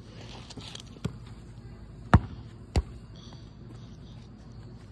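A basketball bouncing on an asphalt driveway: a light bounce about a second in, then two sharp bounces about half a second apart near the middle.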